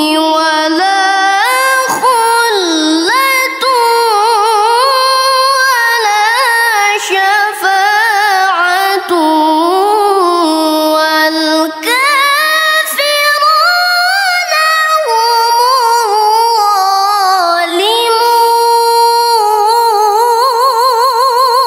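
A female reciter's solo Qur'an recitation in the melodic tilawah style: one voice holding long, ornamented notes with quick wavering trills, pausing only briefly for breath.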